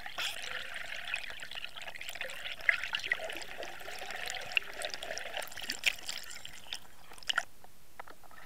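Water splashing and bubbling against an underwater camera as it moves near the surface, with many small pops and clicks. It dies away about seven seconds in.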